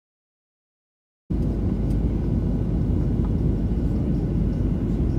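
Jet airliner cabin noise at a window seat: a loud, steady rumble of the engines and rushing air that starts abruptly about a second in, after silence.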